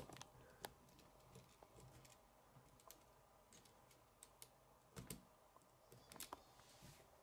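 Faint, irregular clicks and taps of plastic K'nex connectors and rods being handled and snapped together by hand, the sharpest click right at the start.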